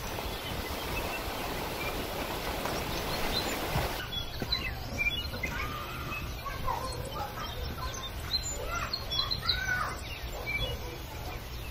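Several birds chirping and calling in short rising and falling notes, over a low steady hum. A steady hiss of noise fills the first four seconds, before the birdsong begins.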